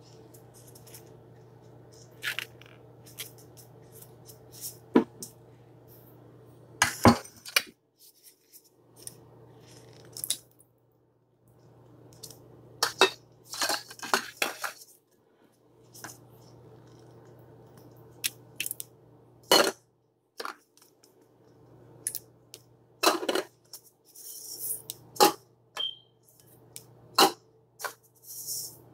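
Glass bowls, a metal serving tray and spoons clinking and knocking on a countertop as dishes are set down and ingredients added, over a low steady hum.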